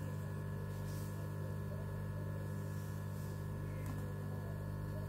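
Steady low electrical hum made of several constant tones, with one faint tick about four seconds in.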